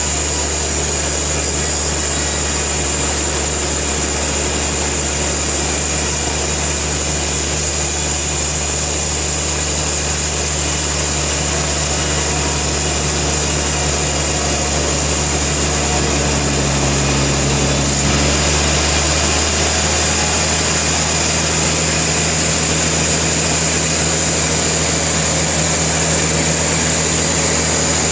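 Sawmill machinery running with a steady mechanical drone. Its tone shifts abruptly about two-thirds of the way through.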